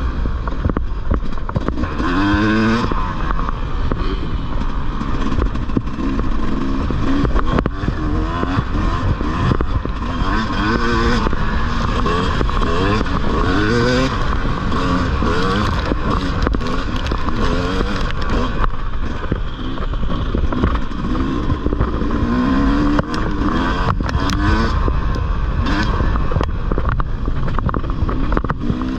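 Dirt bike engine revving up and down again and again as the rider races, its pitch climbing and dropping with each change of throttle and gear, over a steady low rumble.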